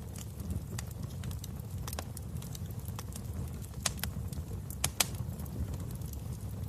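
Wood fire burning in a fireplace: irregular sharp crackles and pops over a steady low rumble of flame. The loudest pops come about four and five seconds in.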